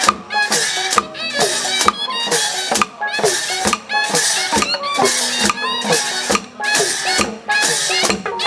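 Traditional Burmese ensemble music (hsaing waing) with drums, playing a steady beat of sharp strokes about twice a second under pitched, gliding notes.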